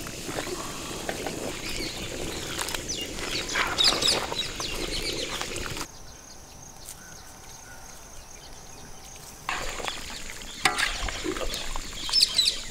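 Metal ladle stirring macaroni through a thick, bubbling white sauce in a large pan, with scraping and clicking against the pan, and birds calling in the background. The stirring drops away to a quieter stretch of outdoor ambience partway through, then returns with louder clicks near the end.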